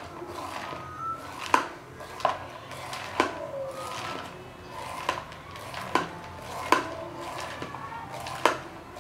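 Kitchen knife striking a cutting board in short strokes, about one a second, as when corn is cut up for cooking.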